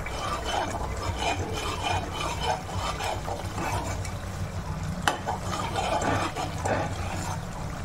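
A perforated steel spoon stirring and scraping a thick masala frying in a steel kadhai, with the masala sizzling and spattering. A single sharp clink about five seconds in, as the spoon strikes the pan.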